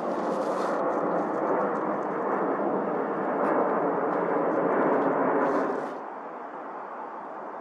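Nikon P950's zoom motor driving the lens in to full telephoto, a steady mechanical whir that cuts off suddenly about six seconds in as the zoom stops. A quieter steady background hiss remains.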